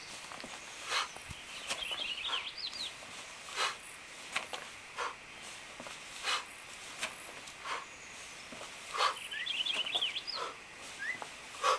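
Short whooshing sounds about every second, in time with a steel mace being swung around the body. A small bird twitters in two quick runs of chirps, one near the start and one near the end.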